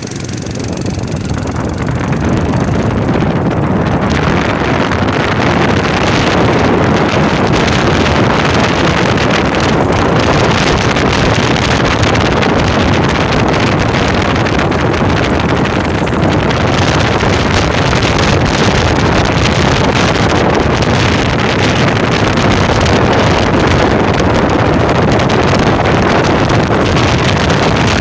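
Steady rushing noise of wind on the microphone, building up over the first two seconds and then holding steady.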